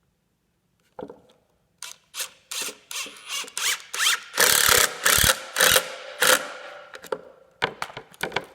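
A screw being driven into a wooden board, in a run of short turning strokes. The strokes come two or three a second at first, grow longer and louder in the middle, and thin out near the end as the screw seats.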